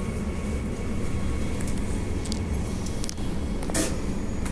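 Steady low rumble inside an electric suburban train carriage, with a few faint clicks and a short hiss about four seconds in.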